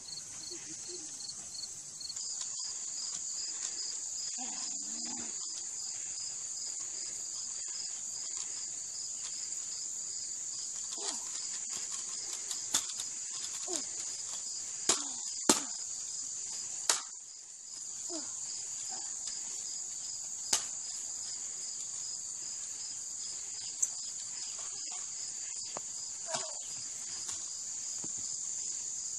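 A steady, high-pitched chorus of insects with an evenly pulsing trill under it. Several sharp knocks and clicks are scattered through it, the loudest around the middle.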